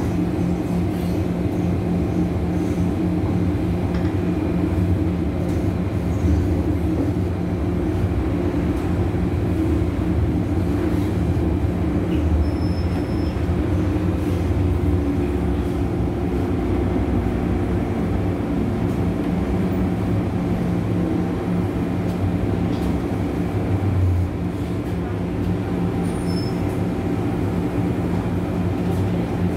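MTR M-Train electric multiple unit heard from inside the car: a steady motor hum with wheel and track rumble as the train runs into a station and slows to a stop.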